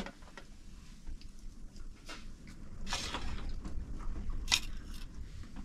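Spoons clinking and scraping on plates as several people eat a meal, with chewing; scattered sharp clicks, the loudest about four and a half seconds in.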